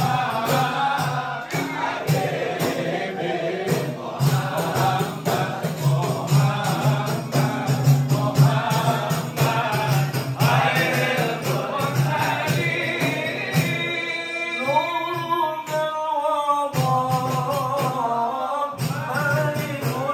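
Men singing religious devotional songs together to a hadrah ensemble of rebana frame drums beating a steady rhythm. About two-thirds of the way through, the drums drop back and a single voice carries a long, wavering melodic line before the fuller sound returns near the end.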